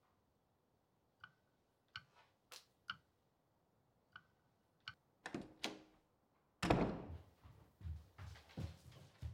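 Sparse light clicks of a finger flicking the plastic blades of a model wind turbine, a few of them with a brief faint ring. About two-thirds of the way through, a much louder thud sets in, followed by repeated low thumps and rustling.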